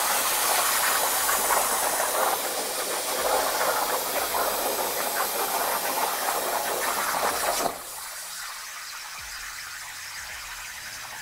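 60-amp plasma cutter torch on a CNC table cutting a circle out of sheet metal: a loud, steady hiss of the arc and compressed air. About three-quarters of the way through the cut finishes and the arc cuts off suddenly, leaving a quieter steady hiss of the post-flow air that keeps the torch consumables cool.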